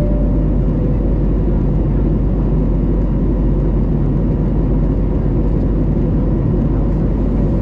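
Steady cabin roar of an Airbus A321neo in its climb: the Pratt & Whitney PW1100G geared turbofans and rushing airflow heard through the fuselage, even and unbroken, with a faint steady hum running underneath.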